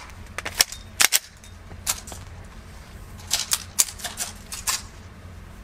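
Semi-automatic pistols being loaded and made ready: a string of sharp metallic clicks and clacks as magazines are seated and slides are racked. There are a couple in the first second, one at about two seconds, and a quicker cluster between about three and a half and five seconds.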